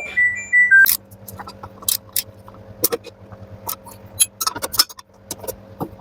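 Irregular metallic clicks and clinks of a wrench and socket working the rotor nut off an LG front-loader's direct-drive motor, over a steady electrical hum. A few short electronic tones sound in the first second.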